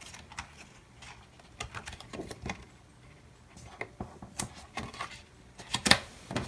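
Hands handling a paper sticker and clear plastic sheets on a planner page: scattered light taps, rustles and clicks, with a few sharper clicks near the end.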